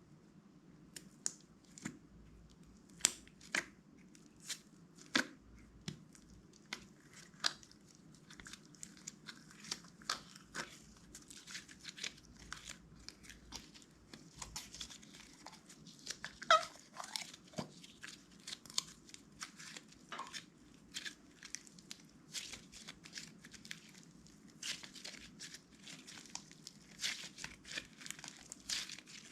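Clear slime being worked by hand, giving irregular small crackling pops and clicks that come thicker and faster near the end.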